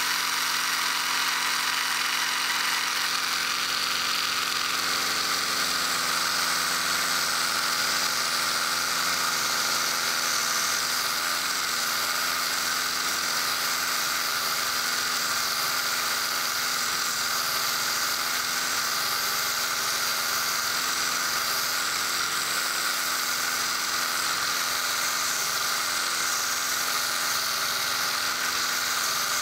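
Small 3D-printed belt sander driven by a 24 V DC 775 motor running steadily with a high whine, a 120-grit sanding belt sanding a block of wood pressed against it.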